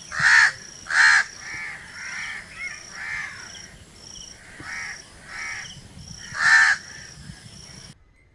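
Crows cawing: two loud harsh caws near the start and another about six and a half seconds in, with fainter caws in between. A faint high chirp repeats steadily underneath, and the sound cuts off abruptly near the end.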